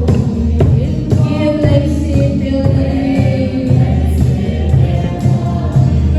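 Choir singing a gospel-style song over music with a strong bass.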